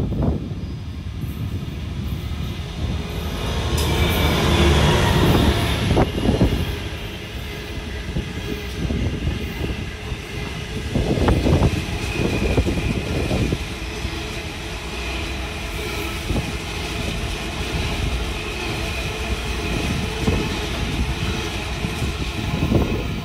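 Diesel freight train passing close by: the locomotive's approach is loudest a few seconds in, then a long rake of cement tank wagons rolls past with groups of clattering wheel knocks over the rail joints and a faint high wheel ring.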